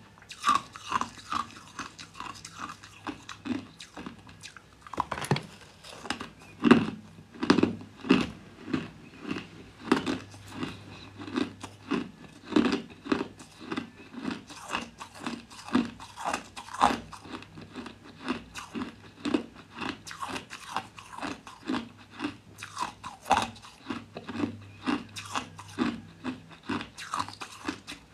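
Crushed ice being bitten and chewed in a person's mouth, close to the microphone: a steady run of sharp crunches, about two a second.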